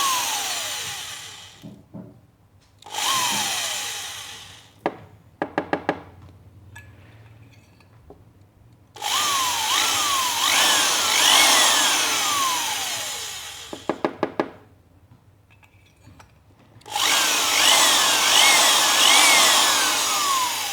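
Hand drill with a small bit boring out old flint that has disintegrated and cemented inside a Zippo lighter's flint tube. It whirs in four bursts, its pitch repeatedly rising and falling, with short runs of rapid clicking in the pauses between.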